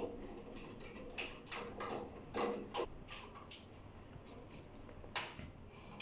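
Faint, irregular clicks and ticks of a water heater's flexible outlet hose nut being tightened onto its pipe fitting, with one sharper click about five seconds in.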